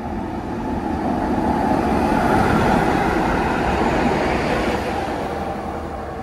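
A tram passing by, its running noise growing louder to a peak around the middle and then fading away.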